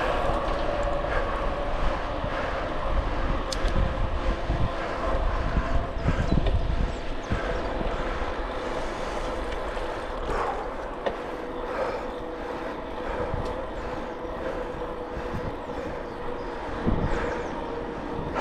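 Wind rumbling on the microphone and a steady tyre hum from a bicycle ridden fast on a paved path; the rumble is strongest in the first few seconds, then eases.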